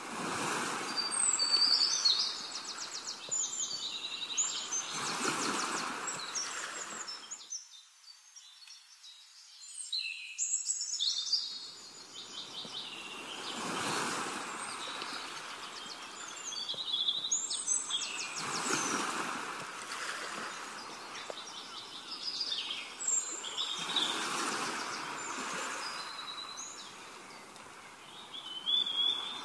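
Birds chirping and trilling, many short calls overlapping, over a rushing noise that swells and fades every few seconds. The rush drops away briefly about a third of the way through.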